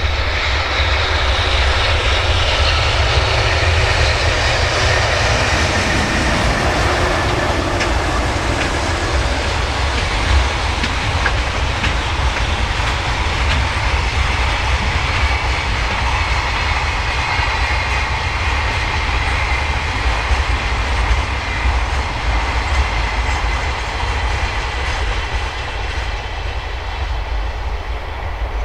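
Freight train hauled by an EH500 electric locomotive rolling past, a long string of container flat wagons going by with a steady rumble and wheel clatter on the rails.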